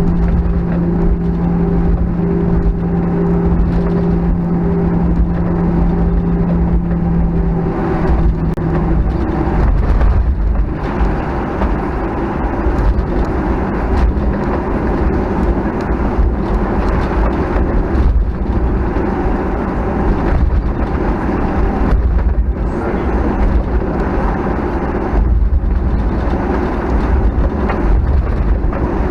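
Boeing 737-900ER's CFM56-7B jet engines running, heard from inside the cabin over a heavy low rumble. A steady hum holds for the first third, then gives way to a rougher, louder rush.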